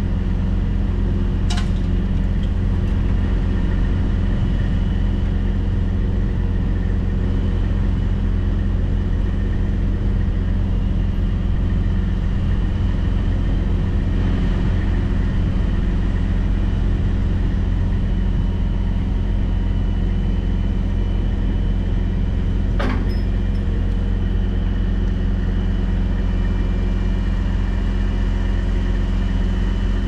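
Heavy wrecker truck's diesel engine running steadily at a constant speed, with a sharp click about a second and a half in and another about 23 seconds in.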